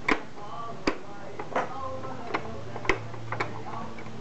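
Hard plastic clicks and clacks from the buttons of a toddler's pop-up toy being pressed, about six sharp, irregular clicks in four seconds.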